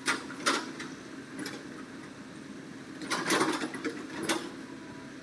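Hitachi excavator's engine running steadily while its bucket digs into a pile of quarry stone, with short bursts of rocks clattering and scraping near the start and again in a cluster around three to four seconds in.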